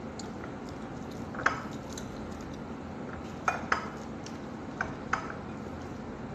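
A meal being eaten by hand from a plate: about five sharp clinks of something hard against the plate, each with a short ring. The loudest comes about one and a half seconds in, and a close pair follows a couple of seconds later, over a steady low background hum.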